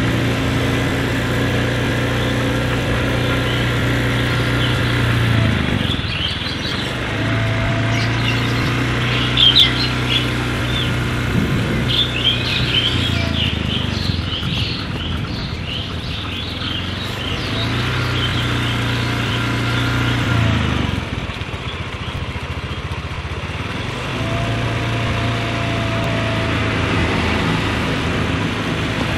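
Small motorcycle engine running at low, steady speed. The throttle is eased off and reopened about four times, so the hum drops away and comes back. Bird chirps sound through the middle stretch.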